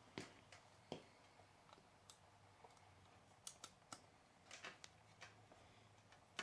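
Faint, irregular metal clicks and ticks from a valve spring compressor being worked against a valve spring retainer on a cylinder head, each click short and sharp.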